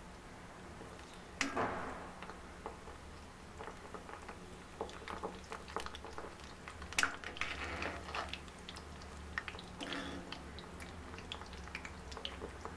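Gulab jamun dough balls deep-frying in hot oil in an iron kadai: a low sizzle, with a spoon stirring the balls and knocking against the pan now and then, the sharpest knocks about a second and a half in and around seven and ten seconds.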